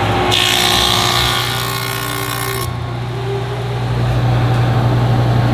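Stationary woodworking machine's motor running with a steady hum while a wooden board is fed through its cutter. The cutting noise lasts about two seconds and then drops away, leaving the machine running free.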